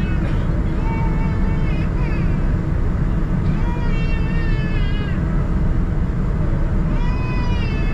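Steady low rumble inside a Boeing 787-9's cabin, with high, wavering cries rising above it several times.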